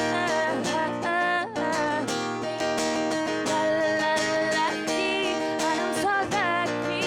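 Acoustic guitar strummed, with a woman's voice singing long, sliding notes with vibrato over it.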